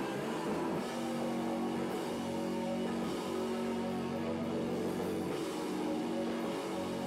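Live rock band playing loud, with drums and guitar holding chords that change every second or two.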